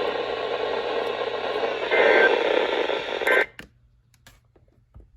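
NOAA Weather Radio reception full of static: a steady hiss with two brief higher tones around two and three seconds in. About three and a half seconds in, the signal cuts off abruptly to near silence, broken only by a few faint clicks.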